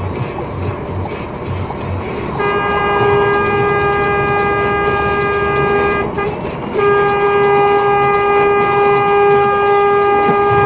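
Truck's horn sounding in two long, steady blasts, the first about three and a half seconds and the second following after a short break, over the running noise of the truck cab. The horn is a warning at a van cutting in close in front.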